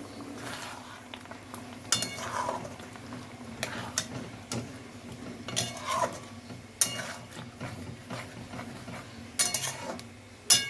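Metal kitchen utensils and pots clinking, with a spoon scraping and stirring in a pan between the clinks. A handful of sharp, ringing clanks stand out, over a steady low hum.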